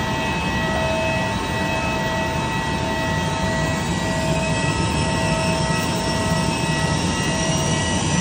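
Jet aircraft noise on an airport ramp: a steady rushing noise with several steady whining tones, and a faint high whine that rises slowly from about three seconds in.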